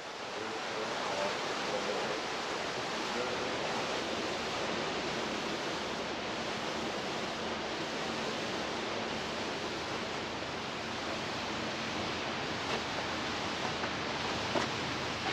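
Steady, even rushing hiss with no voices, with a few faint ticks late on.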